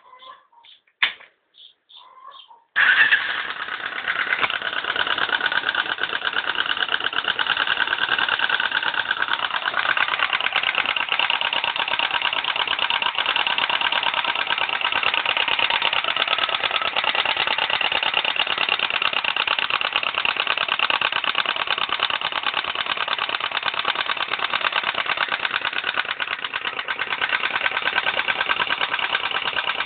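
Viper Zubr motorcycle engine starting about three seconds in, after a few short sharp sounds, then running steadily with a fast, even knock: the engine knock that the owner is showing as a fault.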